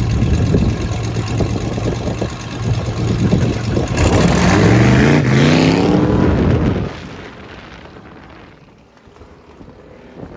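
Drag vehicle's engine at full throttle, its pitch climbing as it accelerates for a couple of seconds, then dropping away sharply about seven seconds in, leaving wind noise.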